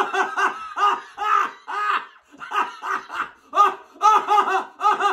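A man laughing hard in a string of high-pitched whoops, each rising and falling in pitch, about two a second at first and quickening towards the end.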